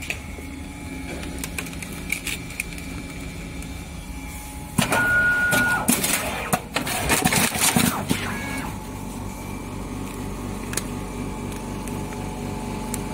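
LM 5000SSA automatic stretch-film tray wrapping machine running with a steady motor hum. About five seconds in, the wrapping cycle grows louder, with clatter and rapid clicks that open with a short, steady high tone lasting about a second. After roughly eight and a half seconds it settles back to the hum.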